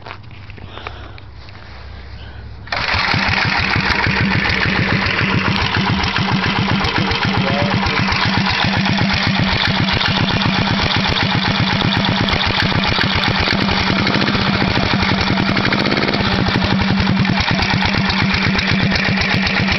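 Old Briggs & Stratton single-cylinder flathead engine on a go-kart, starting about three seconds in and then running steadily with an even, rapid pulse through a short open exhaust pipe.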